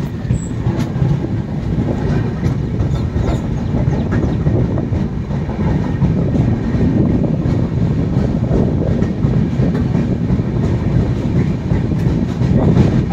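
Indian Railways passenger train running through a station, heard from the coach doorway: a steady low rumble of wheels on rails with faint scattered clicks.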